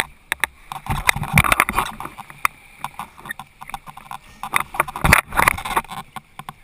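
Water sloshing and splashing against the hull of a jet ski sitting with its engine off, with scattered sharp clicks and knocks. Two louder bouts of splashing come about a second in and about five seconds in.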